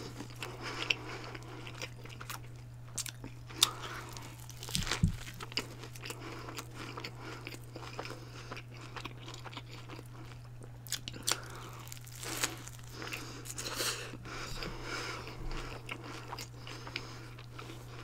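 Close-miked chewing of a mouthful of burger: irregular wet mouth clicks and soft crunches, over a steady low hum.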